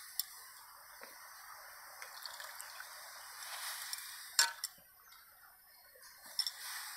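Water simmering in a wide metal pan over a wood fire as chopped taro leaves are dropped in, a soft steady bubbling hiss. A few sharp clicks break in, two of them close together about four and a half seconds in.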